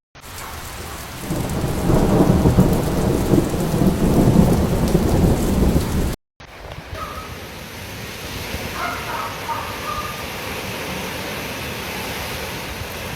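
Cyclone storm weather: strong wind and rain, with the wind buffeting the microphone in a loud, low rumble for a few seconds. After a cut about halfway through, a steadier and quieter rush of wind and rain follows.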